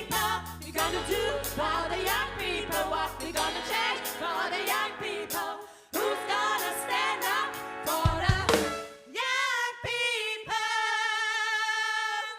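Band music with singing over bass and drums, ending on a long held, wavering chord that cuts off abruptly.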